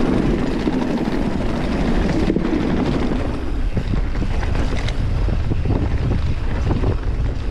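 Wind buffeting an action camera's microphone as a mountain bike rolls downhill, with tyre noise and frequent short rattles and knocks from the bike over rough ground. The sound shifts briefly a little over two seconds in, and the rattles come more often in the second half.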